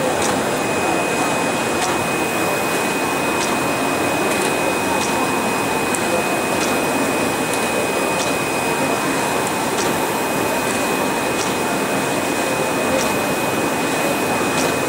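SAGG320 flatbed label die-cutting machine running: a steady mechanical hum with a constant high whine, and light clicks about once a second.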